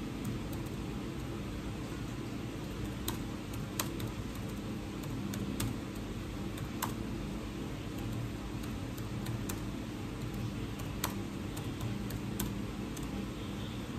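Steady low hum with a few sharp clicks scattered through it, several seconds apart.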